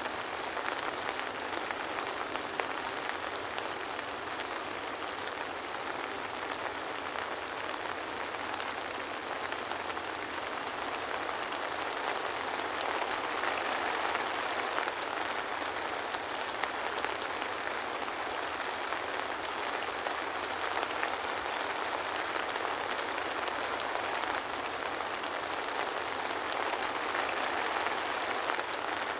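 Steady soft rain: an even hiss of falling rain with many small drops pattering on a surface, swelling slightly now and then.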